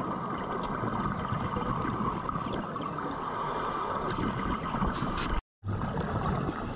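Muffled underwater noise heard through a diving camera's housing: a steady rush of water with bubbling and scattered faint clicks. It cuts out completely for a moment about five seconds in.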